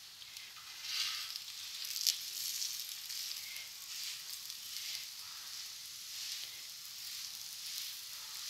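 Onion paratha sizzling in ghee on a hot iron tawa. The hiss swells and eases every second or so as the bread is pressed down by hand, with a short tap about two seconds in.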